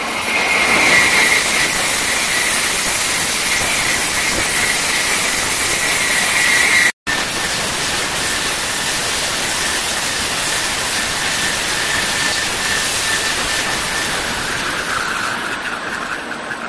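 Tokaido Shinkansen N700-series train passing through the station at high speed: a loud, steady rush of air and wheels with a high whine running through it. The sound cuts out for an instant about seven seconds in, then the rush carries on and dies away near the end.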